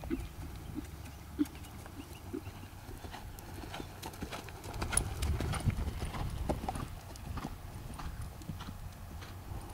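Hoofbeats of a ridden Thoroughbred horse moving over grass, a steady run of dull clip-clops that grow louder as the horse passes close about five seconds in.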